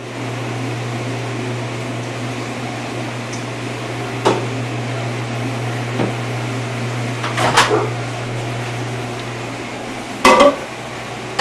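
Steady low hum with a few light knocks of a milk carton and mug on a kitchen counter as milk is poured, then a loud clunk at the microwave door near the end.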